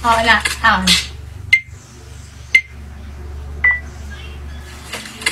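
A brief bit of speech, then three short electronic beeps, each a sharp click with a brief high tone, about a second apart, over a steady low hum.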